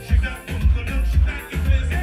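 Live one-man band music with a heavy bass beat about twice a second.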